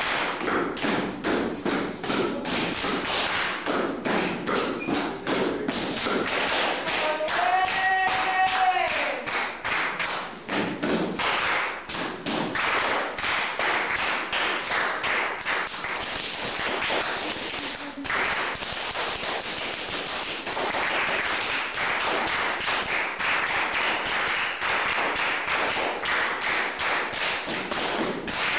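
Body percussion by a group: a dense, continuous stream of claps, taps and stomps. A brief voice call rising and falling in pitch cuts in about eight seconds in.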